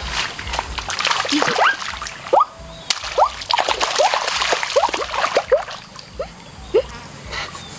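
Shallow water splashing and sloshing as someone wades through it, with irregular splashes and many short bubbly plinks.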